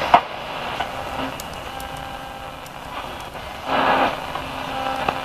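Becker Mexico car radio being tuned between stations: a sharp click just after the start, then hiss and static with faint steady tones, and a brief louder snatch of broadcast about four seconds in.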